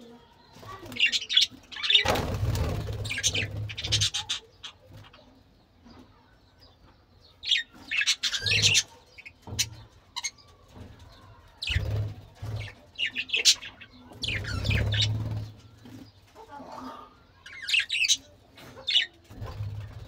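Budgerigars chirping and chattering in short, fast, wavering bursts, with pauses between them. Several dull low thumps and rumbles come in among the chirps.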